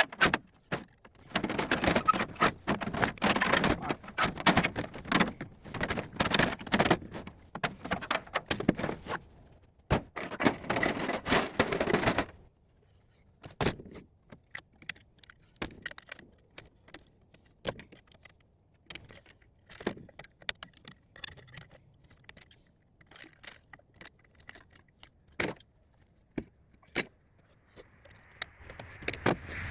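Scrap metal being handled: dense clattering and clanking for about twelve seconds, then scattered single clicks and knocks.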